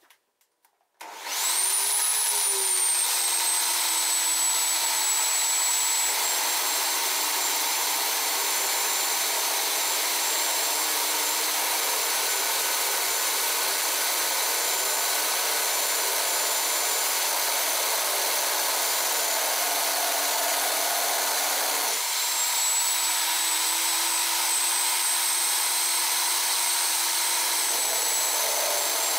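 Electric drill in a drill stand starting up about a second in and running steadily with a high whine, its bit grinding a hole into a glass bottle. The level dips briefly about three quarters of the way through, then the run continues.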